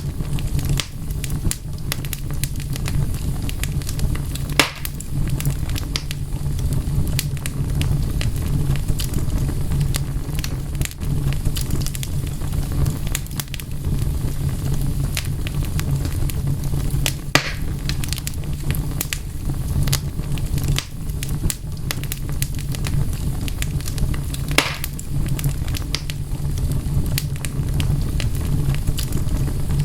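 Wood fire crackling: a steady low rumble with frequent sharp pops and snaps, a few louder pops standing out at irregular moments.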